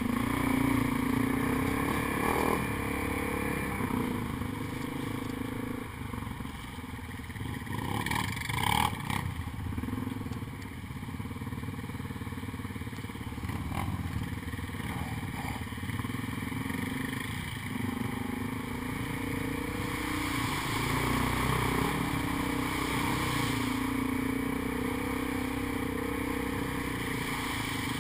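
ATV engine running on a rough dirt trail, heard from on board, its pitch rising and falling with the throttle. A brief clatter about eight seconds in.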